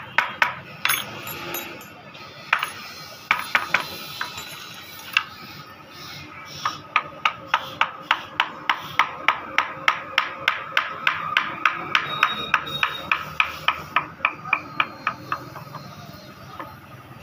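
Wooden mallet striking a carving chisel into a hardwood panel. A few scattered blows come first, then a steady run of quick, even taps at about three or four a second, which stops a couple of seconds before the end.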